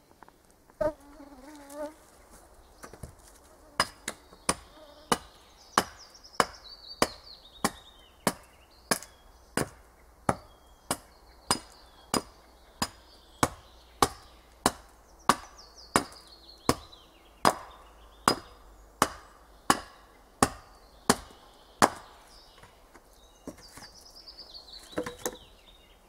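Small hatchet chopping alder wood into chips on a chopping block: a steady series of sharp blows, about three every two seconds, for most of the stretch. A bird's high descending trill sounds faintly a few times between the blows.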